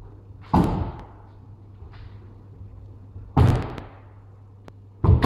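Three sudden loud impacts from a kendo bout, the stamps and strikes of attacks on the wooden hall floor. They come about half a second in, about three and a half seconds in, and near the end, each ringing briefly in the hall.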